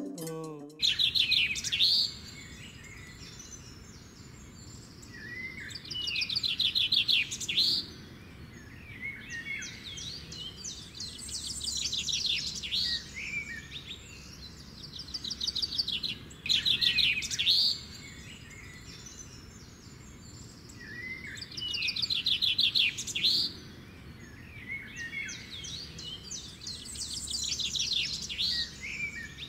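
Songbirds singing in bursts of rapid high trills and chirps over a steady low hiss. The same sequence returns about every 15 seconds, like a looped ambience recording. Guitar music cuts off just under a second in.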